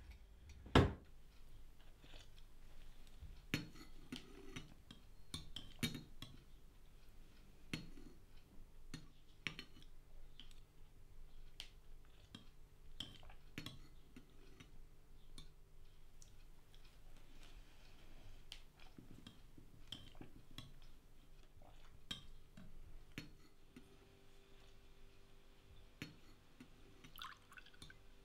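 Cutlery and dishes handled at a table: scattered light clinks and knocks, with one sharp knock about a second in as a drawer is pushed shut. Near the end, red wine is poured into a stemmed glass, the pour rising in pitch as it fills.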